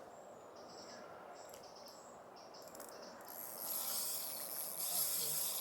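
Insects chirping in short repeated pulses. A louder, high-pitched buzzing starts about three and a half seconds in.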